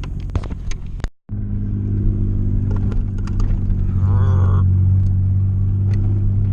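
Pickup truck engine droning steadily, heard from inside the cab while driving a rough trail, with scattered knocks and rattles from the bumps. The audio cuts out completely for a moment about a second in.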